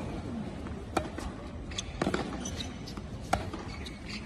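Tennis ball struck with rackets in a baseline rally: three sharp pops about a second apart over low, steady background noise.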